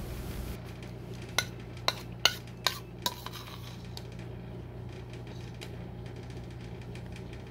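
A metal spoon clinking against a ceramic plate while scooping food: five sharp clinks spread over about two seconds, starting a little over a second in. After that only a low steady hum is left.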